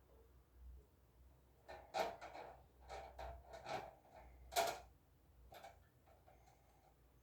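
Parts of a fan being handled and fitted together: a series of irregular clicks and knocks, the sharpest about four and a half seconds in.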